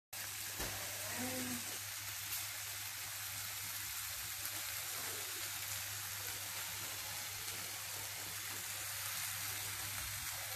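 Tawa chicken in thick masala gravy sizzling quietly and steadily in its pan on the stove, over a low steady hum.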